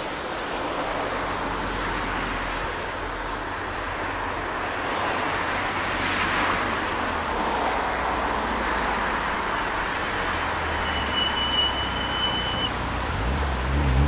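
Steady outdoor wash of wind and road traffic noise, swelling every few seconds. A brief high steady tone sounds a little past the middle, and a low rumble builds near the end as the Thomas-liveried steam locomotive and its train come closer.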